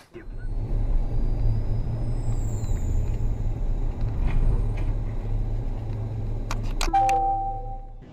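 Car interior sound as picked up by a dashcam: a steady low rumble of engine and tyres. Near the end come a few sharp knocks, followed by a short electronic chime of several tones.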